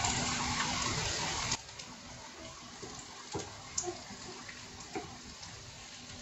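Onion pakodas deep-frying in hot oil in a kadai: a steady sizzling hiss that drops suddenly to a softer sizzle about a second and a half in. A few light knocks of the wooden slotted spoon against the pan.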